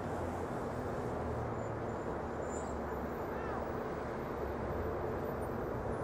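Steady city traffic noise, a continuous rumble with a low engine hum underneath.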